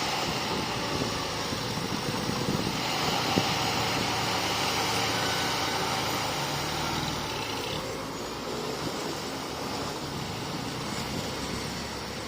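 Bulldozer's diesel engine running steadily, easing slightly in level about eight seconds in.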